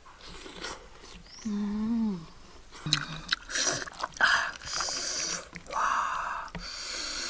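A person eating: a short hummed "mmm" that falls at the end about one and a half seconds in, then a run of chewing and smacking noises mixed with a wooden spoon scraping through food in a pan.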